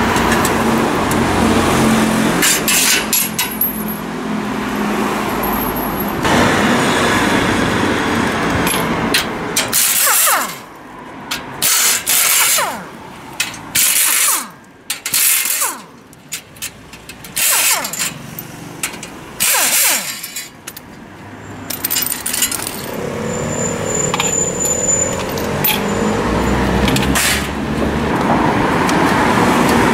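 Cordless power tool run in a series of short bursts, its motor whining up and down each time, as it undoes the bolts of a steel motorcycle crate frame. Street traffic passes before and after.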